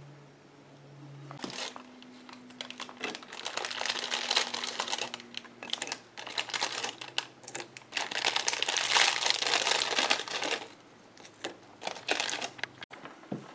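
Crinkling, rustling handling noise in two long stretches, broken briefly about six seconds in and tailing off in scattered bits near the end, over a faint steady low hum.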